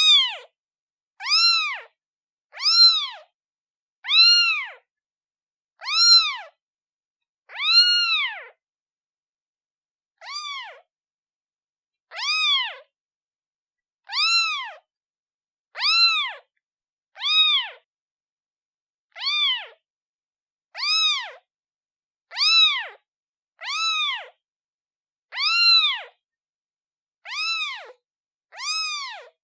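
Newborn kitten meowing over and over, calling for its mother: a string of short high calls, each rising and then falling in pitch, about one every second and a half with silence between.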